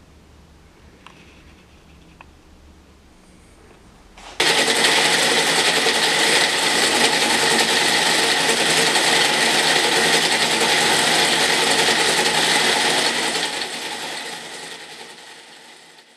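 Wood lathe running, spinning a long wooden spindle held in a plywood steady rest. The steady mechanical sound starts abruptly a few seconds in, holds level, then fades away near the end.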